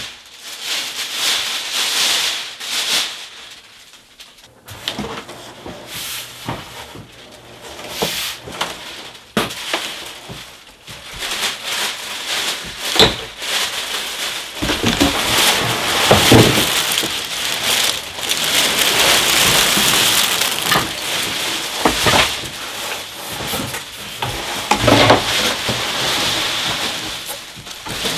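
Plastic packaging bag crinkling and cardboard shipping box rubbing and scraping as the box is handled and lifted off the bagged office chair. The crackling is loud and irregular, broken by several sharp knocks.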